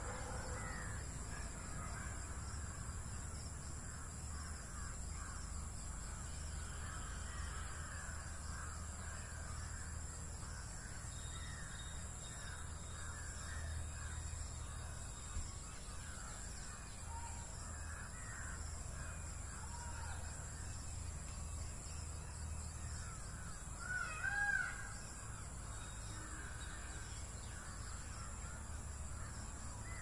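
Outdoor bird chorus of many short, overlapping calls over a steady high-pitched tone, with a louder call standing out about 24 seconds in.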